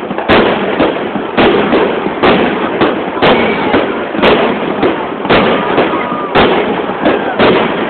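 Grand-finale fireworks barrage: loud shell bursts about once a second, with a dense, unbroken din of smaller bursts between them.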